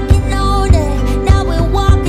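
Background music: a song with a singing voice over a steady beat, a drum hit about every 0.6 seconds.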